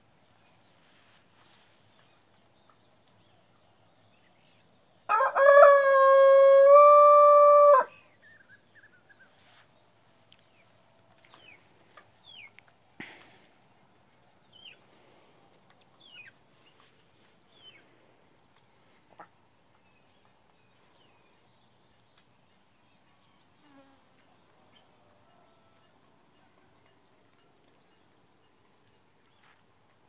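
A rooster crows once, about three seconds long, starting about five seconds in: a short opening note and then a long held one. Faint, scattered chirps from small birds follow.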